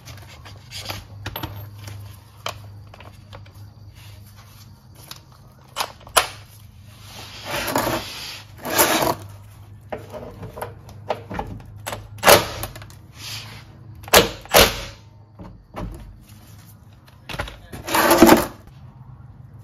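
Cordless power ratchet running in several short bursts on an oil drain plug, loosening it, with clicks and knocks of the tool and socket being handled between bursts. A faint steady low hum underneath.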